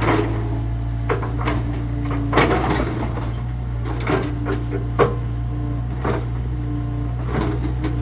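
Mini excavator engine running steadily, with a higher tone coming and going, and scattered sharp knocks and cracks of demolition debris, loudest about two and a half and five seconds in.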